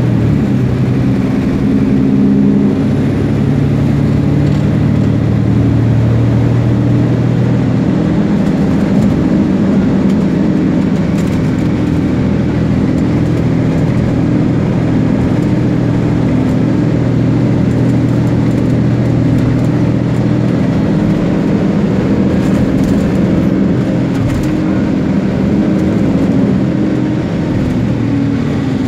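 Engine and road noise heard from inside a bus driving along a highway. A steady low engine drone over tyre rumble, its pitch shifting a few times as the bus changes speed.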